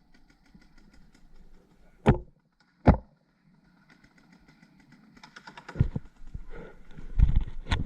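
Two sharp knocks a little under a second apart, then, from about five seconds in, a growing clatter of small rattles and heavier thumps.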